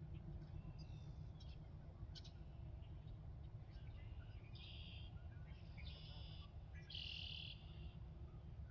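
Songbirds calling in a bog: scattered short high chirps, then from about halfway a run of buzzy calls of about half a second each, one every second or so, over a steady low rumble.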